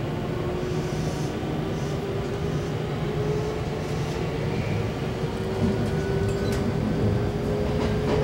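JR West 223-2500 series electric train's IGBT-VVVF traction inverter and motors whining with a slowly rising pitch as the train accelerates away from a stop, over a steady rumble of wheels on rail, heard inside the passenger car.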